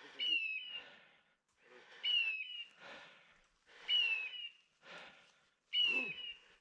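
Hunting dog's beeper collar giving a synthetic hawk-like screech four times, evenly about every two seconds: a high call that slides down and steps lower, identical each time. This repeating point-mode call signals that the setter is standing on point.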